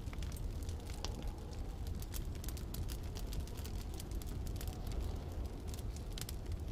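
Wood fire crackling, with many small irregular pops and snaps, over a steady low wind rumble.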